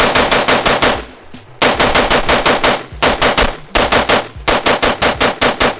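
AR-15 rifle, the Blackout Defense Quantum MK II DTL, firing 55-grain .223 in rapid semi-automatic strings of several shots a second, with brief pauses about a second in and near the end.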